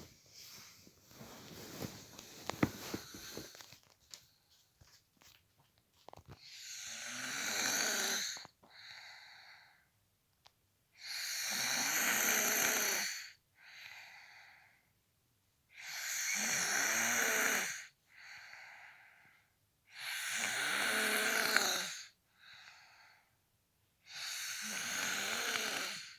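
A sleeping man snoring. Loud snores come about every four and a half seconds, each about two seconds long and followed by a shorter, softer sound. Before the rhythm settles in, about six seconds in, there are only fainter, irregular breathing noises.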